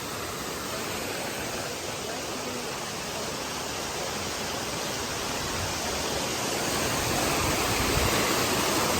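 Rushing water of a cascading mountain brook: a steady hiss that grows gradually louder over the second half.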